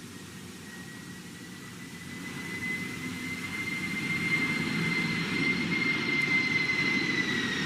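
FedEx cargo jet flying low overhead. Its engine noise grows louder from about two seconds in, with a steady high whine whose pitch drops slightly near the end as the jet passes.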